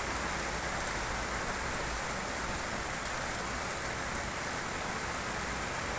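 Rain falling steadily, an even hiss with a few faint sharp ticks of drops.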